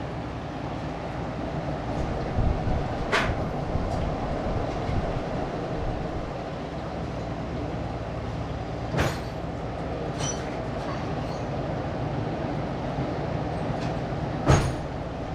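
Steel hand tools clinking and clanking on metal, with four sharp knocks spread over the stretch, the last the loudest and one briefly ringing, while a half-inch wrench is fetched and fitted to the 302 V8's distributor hold-down. Under them runs a steady mechanical hum.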